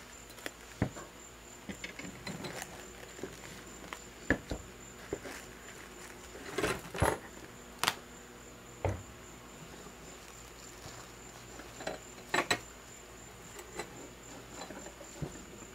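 Plastic wrap crinkling and small metal lathe parts clicking and knocking as they are handled and wrapped in short irregular bursts, loudest about halfway through. Under it runs a steady, high-pitched insect trill.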